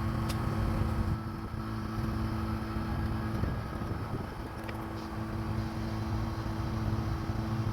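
A car driving at a steady speed: a constant engine drone with low road rumble.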